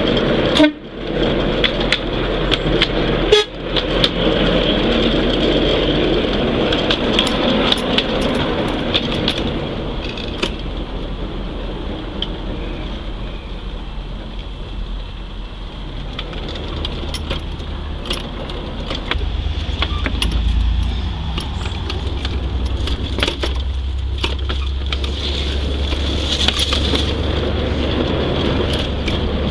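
5-inch gauge Maxitrak Planet miniature locomotive running over loose, unjoined track panels: the wheels click and clatter irregularly at the rail ends, over a low steady hum. There are two sharper knocks in the first few seconds.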